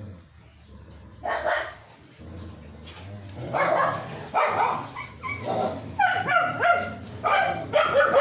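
Newborn puppy crying: short, high cries that rise and fall in pitch, starting about a second in and repeating ever more often from about three seconds on.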